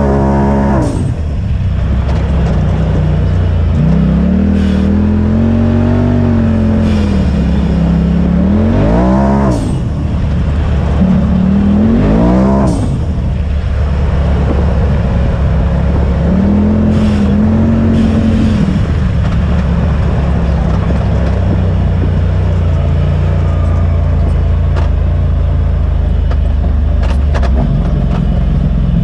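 Polaris RZR side-by-side engine heard from inside the open cab while driving a dirt trail, over steady rumble. The engine climbs and drops in pitch several times as the throttle is pressed and let off, then runs steadier in the last third.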